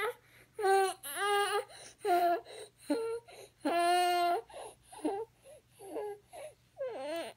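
Young child with croup crying in a string of short, pitched sobbing cries, with one longer held wail about four seconds in and quick noisy breaths between them.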